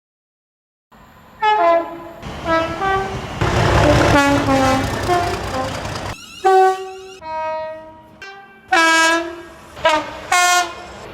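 British train horns sounding a series of blasts at several different pitches, starting about a second in, with the rumble of a moving train under them in the middle.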